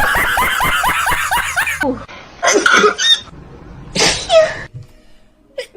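A person's voice: a fast run of short high-pitched cries for about two seconds, then two separate loud sneezes, the second ending on a falling tone.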